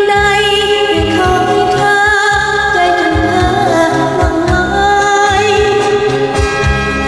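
A woman singing a Thai song over a karaoke backing track with a steady beat.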